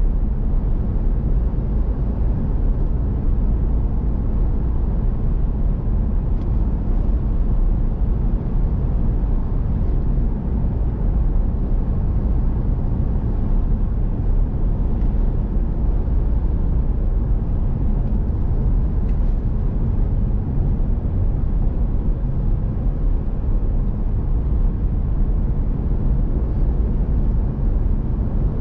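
Steady low rumble of engine and tyre noise inside a moving vehicle's cabin while driving, with a few faint brief ticks.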